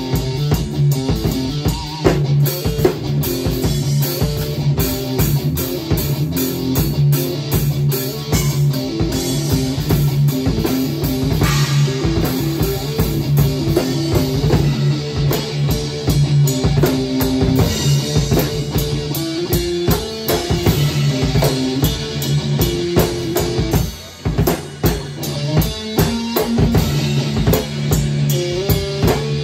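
Live rock jam on an acoustic drum kit and an electric guitar: steady drumming with bass drum and cymbals under a distorted-free electric guitar part moving between notes, with a brief drop in loudness near the end.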